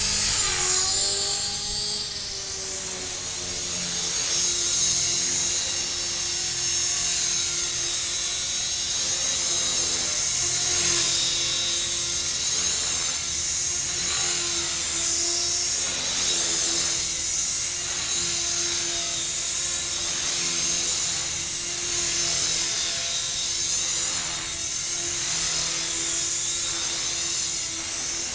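Tarot 450 Pro electric RC helicopter flying: a steady rotor drone under a high whine from its brushless motor and gears, the pitch wavering slightly as the throttle and blade pitch change, with a brief dip about a second in.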